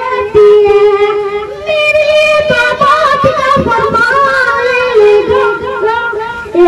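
A boy singing a ghazal solo into a microphone, holding long notes that bend and waver in pitch.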